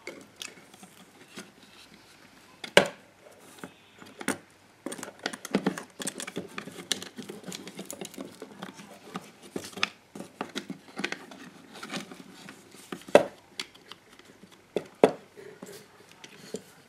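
Handling noise from a GHD hair straightener's plastic housing and wiring being worked by hand: irregular clicks, taps and rustling, with a few sharper knocks about three seconds in, then twice more near the end.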